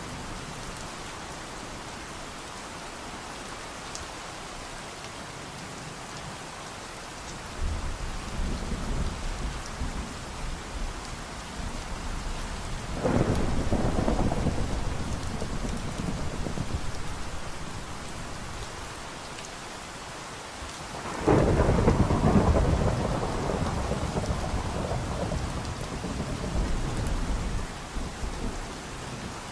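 Steady rain with thunder rolling through it. There is a low rumble about a quarter of the way in, a louder peal near the middle, and another loud peal about two-thirds through that rumbles on for several seconds before fading.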